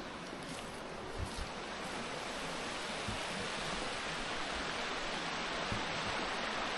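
Rushing water of a fast-flowing rocky mountain stream, a steady wash that grows a little louder a couple of seconds in. A couple of soft thumps come about a second in.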